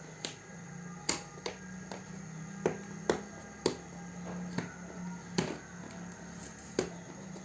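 Sealing tape being picked at and pulled off a cardboard box: irregular sharp clicks and scrapes of fingers on tape and cardboard, the tape holding fast.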